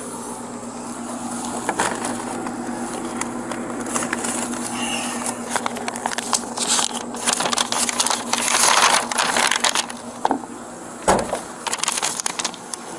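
Rustling, crinkling and clicking from items being handled in the open trunk of a police car, busiest from about six to ten seconds in, over a steady low hum. A single thump comes about eleven seconds in.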